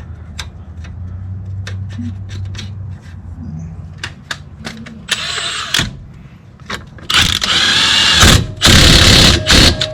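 Impact wrench run in three bursts, a short one and then two of over a second each, running a sway bar link nut onto a car's front suspension. Before them, light metallic clicks of tools over a low hum.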